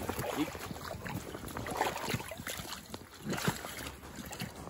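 Shallow river water splashing and sloshing close to the microphone, with scattered irregular knocks and handling noises.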